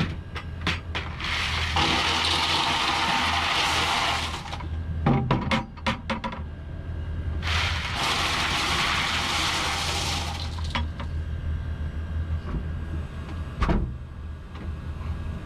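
Boat engine running with a steady low rumble, twice covered by a rushing noise lasting about three seconds, with a few sharp knocks in between.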